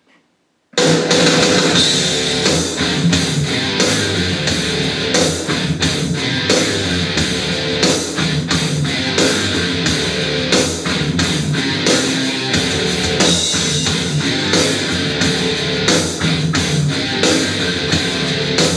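A rock song with distorted electric guitar and drums played back through an LG PK7 portable Bluetooth speaker. It starts abruptly, just under a second in, after a brief silence.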